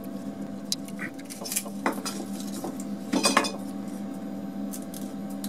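Small pieces of plywood clicking and knocking against each other and the wooden bench as they are handled, with a louder clatter about three seconds in, over a steady hum.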